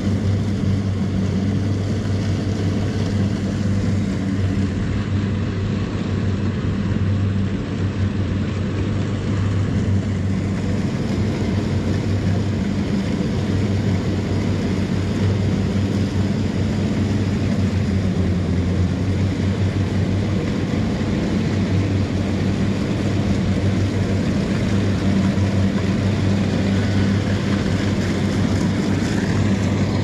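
Engine of rice-harvesting machinery running at a steady speed, an even drone that holds the same pitch throughout.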